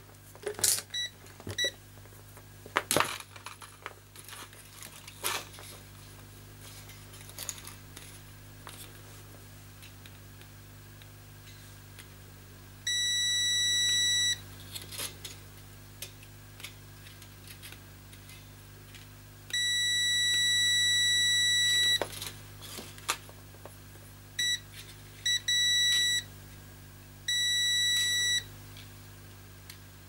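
A digital multimeter's continuity beeper sounds in a series of steady beeps of uneven length, the longest about two seconds, as the test probes are pressed against a hair dryer's heating-element winding, with light clicks and scrapes from the probes. The beeping shows that the broken element wire, twisted back together, now has continuity.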